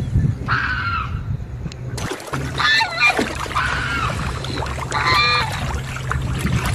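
Waterfowl honking several times in short, arching calls, over a steady low hum.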